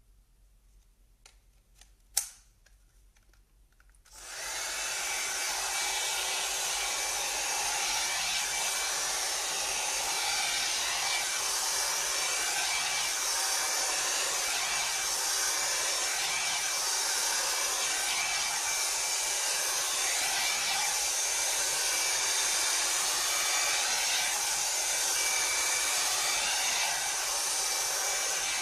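A sharp click about two seconds in, then an electric hot air brush switches on about four seconds in and runs steadily, its fan blowing with a faint high whine while it is worked through long hair.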